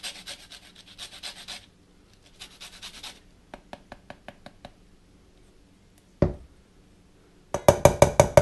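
Lemon rind grated on a fine rasp grater over a stainless steel bowl: two runs of quick scratchy strokes, then a few light ticks. Near the end the grater is knocked several times in quick succession against the metal bowl, ringing, to shake off the zest; these knocks are the loudest sound.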